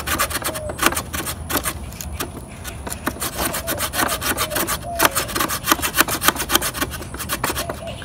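Small fold-out saw blade of a budget Ozark Trail multitool cutting through a wooden stick, rasping back and forth in quick, even strokes, several a second.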